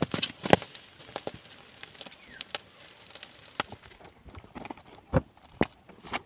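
Wood fire crackling and popping under a turtle roasting in its shell. About four seconds in this gives way to a few sharp knocks as the charred shell is broken open with a knife and by hand.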